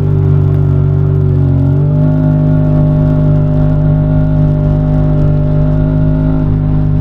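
UTV side-by-side engine running at a steady speed, its pitch stepping up slightly about two seconds in.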